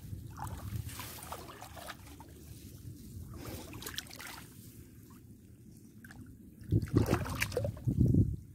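Muddy shallow water sloshing and trickling as it is stirred by someone wading, with two louder splashes about seven and eight seconds in.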